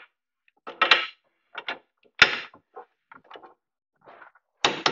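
Torque wrench tightening the knuckle-to-strut bolts to 80 foot-pounds: a string of short ratcheting clicks and metal clunks, with one sharp click about two seconds in.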